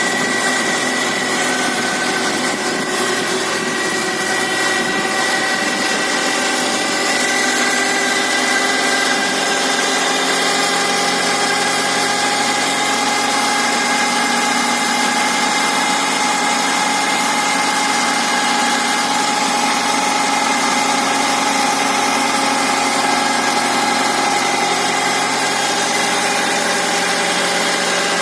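Suzuki Grand Vitara engine idling with a steady high whistle over it, a cold-engine whistle that the owner traces to the crankshaft end because it stays with the drive belt removed.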